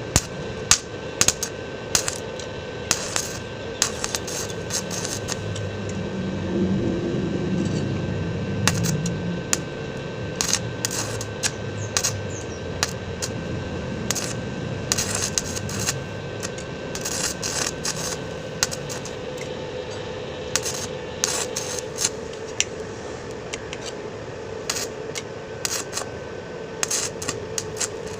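Metal hand tools clinking, tapping and scraping against a scooter's aluminium CVT cover in irregular sharp knocks, as the old case bearing is worked loose without a bearing puller. A steady faint hum runs underneath.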